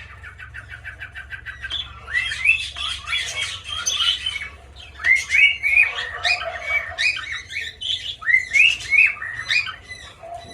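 Pet cockatiels and parakeets calling in an aviary: a quick run of short chirps, then repeated loud rising squawks and chirps from several birds at once.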